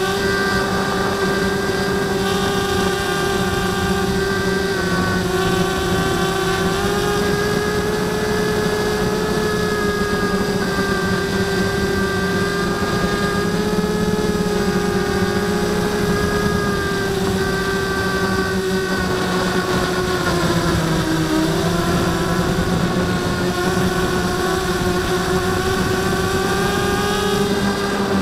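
Blade 200 QX quadcopter's motors and propellers whining steadily, recorded by the camera mounted on the drone. The pitch drifts slightly with throttle changes and dips briefly about twenty seconds in.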